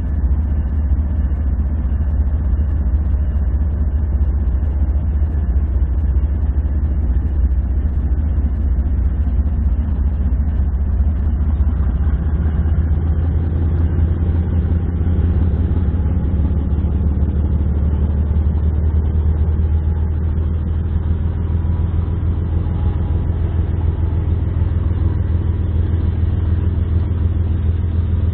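Diesel freight locomotive engines running with a steady low drone; about twelve seconds in, a higher engine note rises and grows louder.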